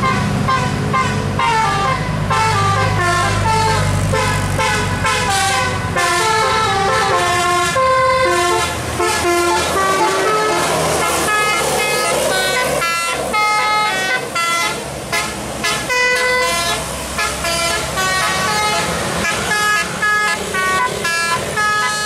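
Tour bus's Basuri DAV 'telolet' multi-trumpet air horn playing a fast melody of stepped notes without a break. The bus's engine rumbles underneath during the first few seconds.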